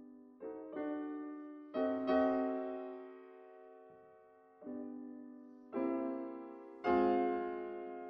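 Slow background piano music: single notes and chords struck every second or so, each ringing and fading away.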